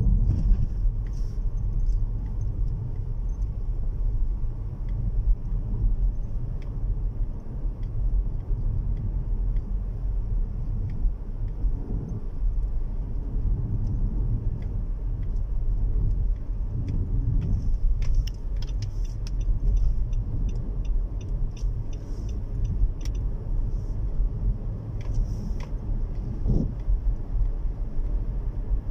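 Steady low rumble of a car driving, engine and tyre noise heard from inside the cabin. About two-thirds of the way through there is a few-second run of light, quick, evenly spaced ticks.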